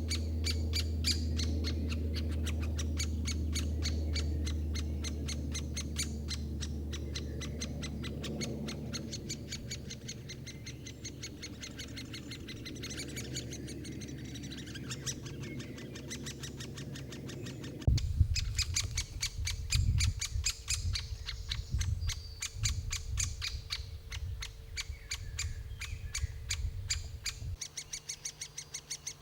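Great spotted woodpecker calling: a rapid, continuous series of short, sharp ticking notes, several a second, with a low rumble underneath that stops abruptly about two-thirds of the way in.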